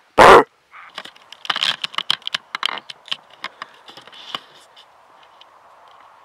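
A loud thump, then a few seconds of scattered sharp clicks and rustles close to the microphone, thinning out into a faint steady background hiss.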